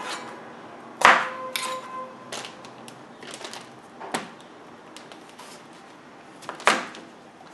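Chef's knife cutting through potatoes and knocking on a plastic cutting board in scattered taps. The sharpest knocks come about a second in, with a short ringing tone after it, and again near the end.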